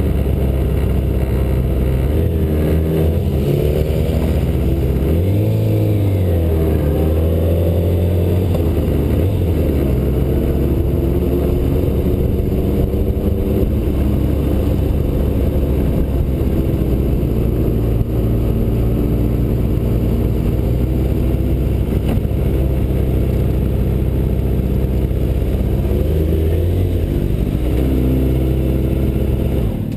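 Yamaha R6 inline-four engine running at low speed, picked up close by a camera mounted on the bike. Its pitch rises and falls with the throttle a few times a few seconds in and again near the end, and holds steady in between.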